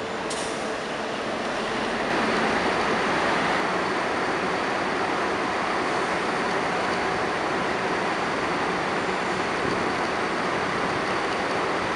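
Steady road-traffic noise, a wash of tyre and engine sound from buses and passing vehicles, that steps up in level about two seconds in.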